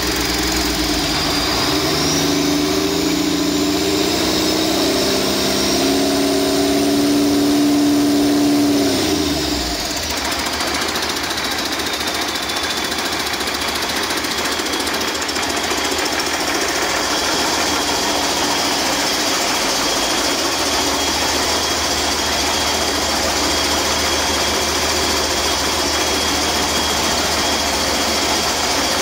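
Cummins C8.3 inline-six turbodiesel revved up just after the start and held at higher speed, then dropped back to idle about nine seconds in. It idles steadily for the rest, with a high turbocharger whine that rises and falls with the revs and then holds steady.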